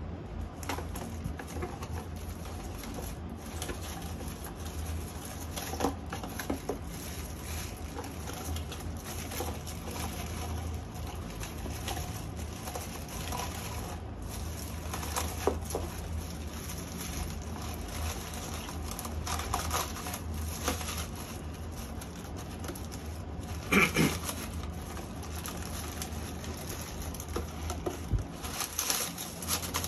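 Crinkled brown packing paper rustling and crackling as it is pulled out of a cardboard product box, with small handling clicks and one louder bump about two-thirds through, over a steady low hum.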